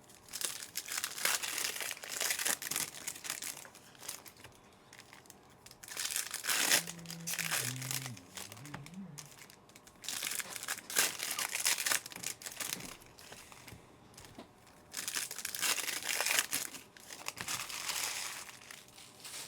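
Foil trading-card pack wrappers being torn open and crinkled by hand, in about four bursts of crinkling with short pauses between them.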